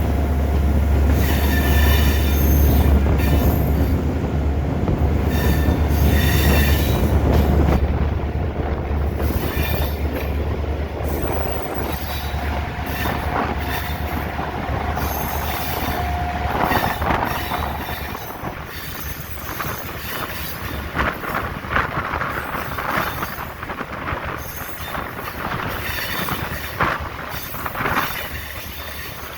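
A diesel freight train passing. A heavy low engine hum runs for the first dozen seconds as the locomotive goes by, then fades. The wagons follow with rolling wheel clatter, and a steady wheel squeal sounds for a few seconds in the middle.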